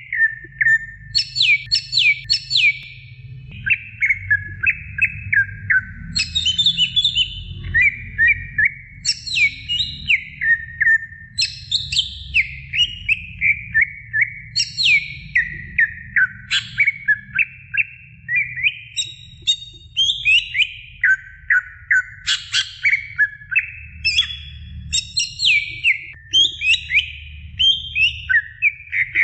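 Green leafbird (cucak ijo) singing nonstop: fast runs of chirps and downward-sliding whistled notes, one phrase straight after another, over a steady low rumble.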